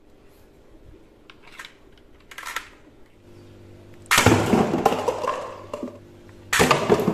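A toy sniper rifle shoots suction-cup darts at a stack of paper cups, knocking the cups over so they clatter onto a tile floor. This happens twice, about two and a half seconds apart, and each clatter dies away over about a second. Before the shots there are a few light plastic clicks as a dart is loaded.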